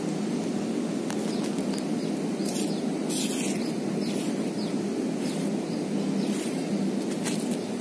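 Steady low outdoor rumble with a few short rustles and crackles scattered through it.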